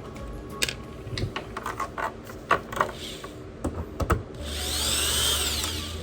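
Small hard clicks and knocks of parts and tools being handled, then a small electric screwdriver or drill motor running for about a second and a half near the end, its pitch rising and then falling.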